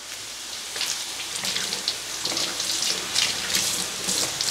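Kitchen sink faucet running while romaine lettuce leaves are rinsed under it, water hissing and splashing off the leaves into the sink; it gets louder about a second in.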